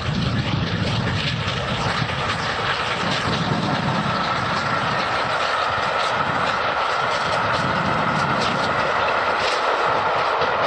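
LNER A4 Pacific 'Bittern', a three-cylinder steam locomotive, running past at speed: a steady rushing noise with a few faint clicks. A low rumble in the first couple of seconds gives way to a higher, hissing band.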